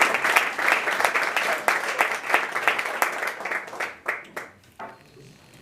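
Audience applause from a small club crowd, dense at first, then thinning to a few last claps about four seconds in and fading out.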